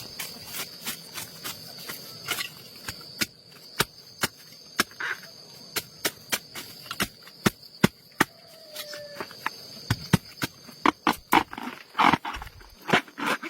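Irregular sharp taps and knocks, at times several a second, over a steady high-pitched insect drone. A short falling whine comes about two-thirds of the way through.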